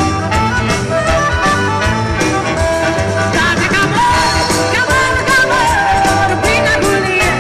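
Band playing a funk-and-rock arrangement of a Calabrian folk song, with drums keeping a steady beat under bass and guitars, and singing. A wavering lead melody line comes in about three seconds in.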